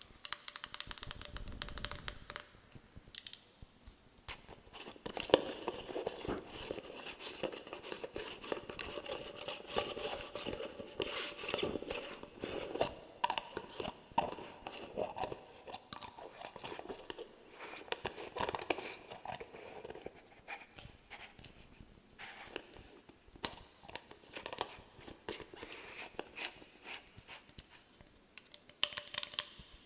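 Close-miked ASMR trigger sounds: a dense run of crackling, crunching clicks and scratches, with a couple of quieter stretches.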